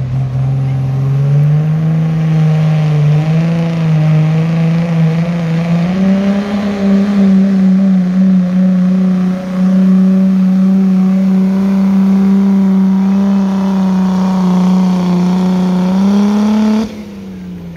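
Turbo-diesel pickup engine under full load while pulling a weight-transfer sled. The revs climb in two steps over the first six seconds, then hold high and steady. Near the end the engine drops off sharply as the pull ends.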